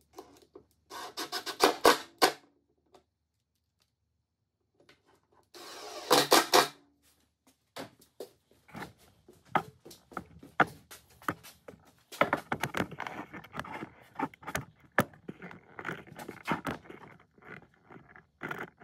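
A Milwaukee cordless driver runs in two short rattling bursts, driving screws through the drawer box into the wooden drawer front. Scattered knocks and scrapes of wood being handled follow.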